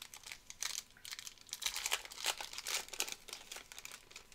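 Foil wrapper of a 2020 Topps Finest WWE card pack crinkling and crackling in the hands as it is torn open.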